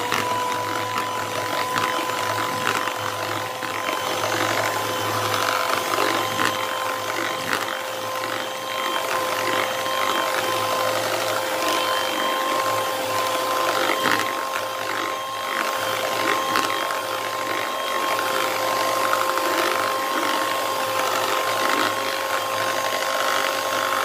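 Electric hand mixer running at a steady speed, its motor giving a constant whine while the beaters whip ghee and cold water into a white, creamy froth. It winds down at the very end.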